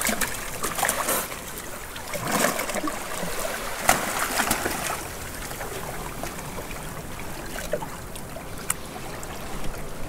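Sea water washing and splashing over rocks at the shoreline, with a couple of sharp knocks, about four seconds in and near the end.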